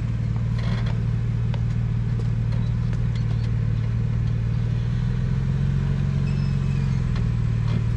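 Jeep Wrangler engine running steadily at low revs as it crawls through a narrow rock slot, a deep even hum with a few faint clicks.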